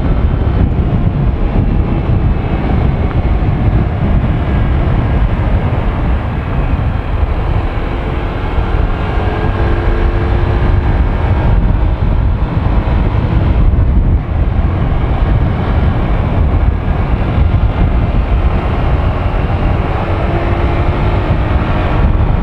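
Honda Click 125i scooter's single-cylinder engine running at riding speed under steady wind rush on the microphone.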